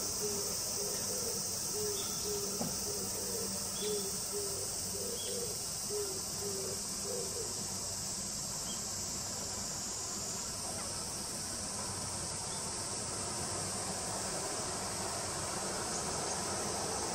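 A chorus of cicadas, buzzing steadily and high, shifting slightly about ten seconds in.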